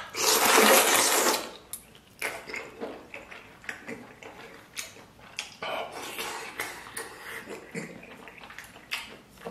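A loud slurp as a long length of stewed pork intestine is sucked into the mouth, lasting about a second and a half, followed by open-mouthed chewing with wet smacks and clicks.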